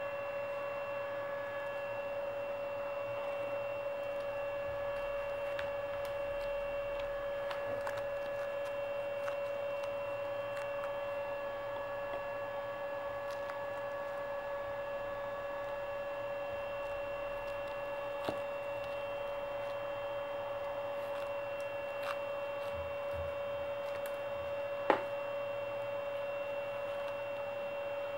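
Steady electrical hum at one pitch, with a few faint clicks and one sharper click near the end.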